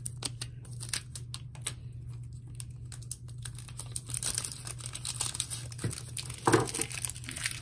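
Thin clear protective plastic film crinkling and tearing as it is peeled off a laptop charger's power brick, a run of small crackles and clicks with a louder rustle about six and a half seconds in.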